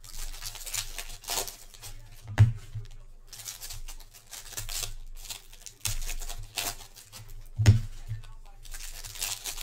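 Foil trading-card packs being shuffled and handled, crinkling and rustling in bursts, with two dull thumps as packs are knocked down on the table, about two and a half seconds in and near the end.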